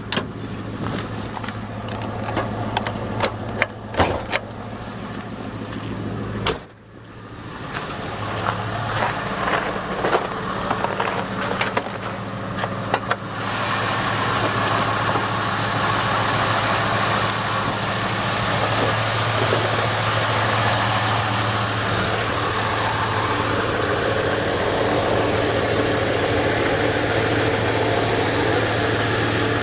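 1989 Lincoln Town Car's 302 (5.0-litre) V8 idling steadily with an exhaust leak. Irregular sharp clicks come through over the first half, and from about halfway a louder, steady rush of noise joins the idle.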